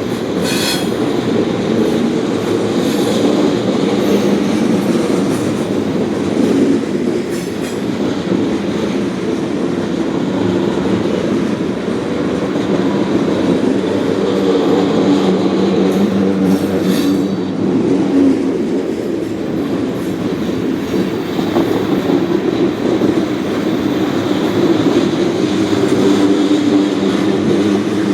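Freight train of ethanol tank cars rolling past: a steady rumble of steel wheels on rail with clickety-clack over the joints. Brief high wheel squeals come shortly after the start and again a little past halfway.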